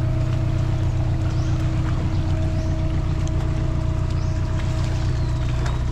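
Motor boat engine running steadily at an even speed, a continuous low drone.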